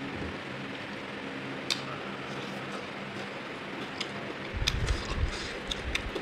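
A person eating chicken, with a few sharp mouth or handling clicks and a cluster of soft low thumps past the middle, over a steady fan-like background hiss.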